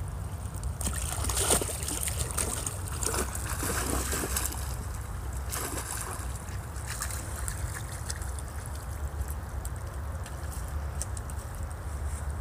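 A dog splashing into a shallow creek, loudest about a second and a half in, then sloshing through the water with scattered smaller splashes, over the steady trickle of the stream and a low steady rumble.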